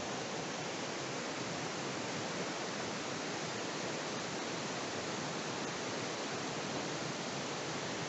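Steady, even rush of flowing river water.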